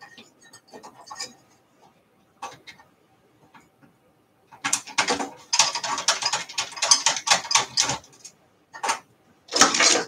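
A screwdriver backs out the screws that hold a motherboard to a metal PC chassis. There are scattered clicks at first, then a dense run of rapid clicking for about three seconds, and two louder clatters near the end. The board is being loosened from the chassis to cure its failure to POST.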